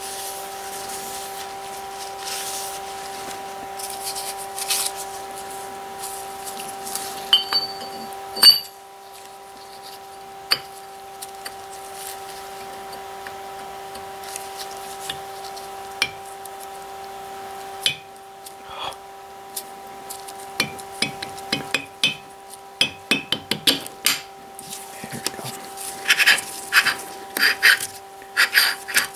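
Steel parts of a three-jaw lathe chuck clicking and knocking as the toothed scroll ring is worked down into the chuck body, a tight fit. There are scattered light clinks, one sharper knock about eight seconds in, and a quick run of clicks near the end, over a steady background hum.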